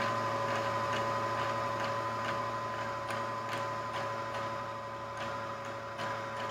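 Sewing machine motor running at steady speed while winding the bobbin, a steady whine with a light regular ticking.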